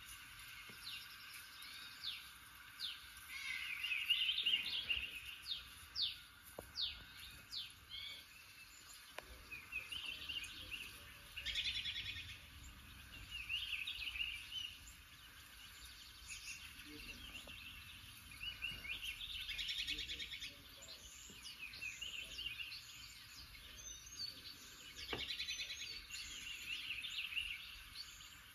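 Songbird chirps and trilled song phrases played through a television's speakers from a bird video, coming every second or two.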